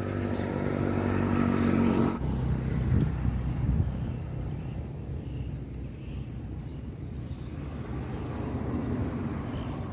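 An engine running steadily, which cuts off abruptly about two seconds in, followed by a low rumble that slowly fades.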